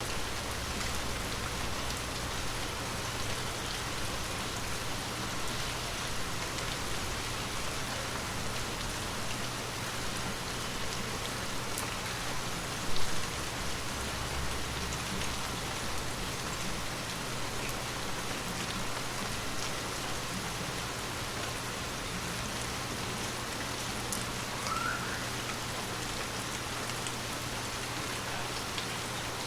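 Light rain falling steadily, an even patter of drops on a surface, with one brief louder knock about halfway through.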